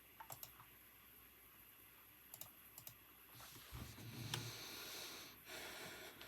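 Faint, scattered keystrokes on a computer keyboard: a few isolated clicks early on and a couple more about two and a half seconds in, then a longer soft rustling noise with a low bump in the middle, lasting about three seconds.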